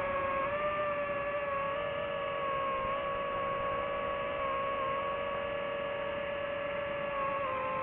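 DJI FPV drone's motors and propellers whining at a steady cruising throttle: one held pitch with overtones that wavers only slightly, over a rush of airflow noise.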